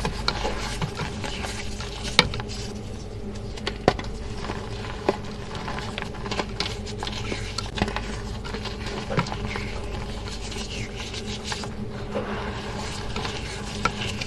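Crunchy reformed chalk blocks, wetted and dried, being crumbled and crushed: an irregular run of small crackles and crunches, with a few sharper snaps about two and four seconds in.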